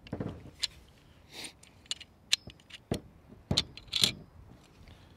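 Metal clicks and light scraping of an M14 rifle's rotating bolt being turned and worked free of the steel receiver during field stripping. About eight separate clicks, a few of them sharper than the rest.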